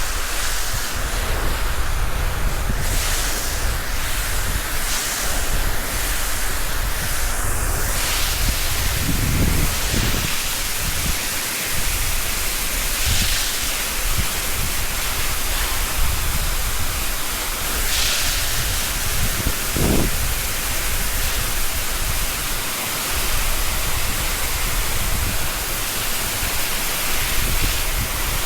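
Water rushing from a large wash-down hose onto the concrete of a dairy milking shed yard: a steady spray with a few brief swells, hosing muck and stones off the concrete.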